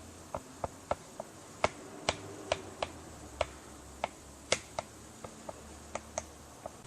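A series of about seventeen light, sharp clicks, irregularly spaced at roughly two or three a second, over a faint low hum.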